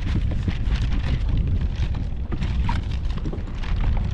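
Wind buffeting the microphone in a steady low rumble, with choppy waves slapping and splashing irregularly against a kayak's hull.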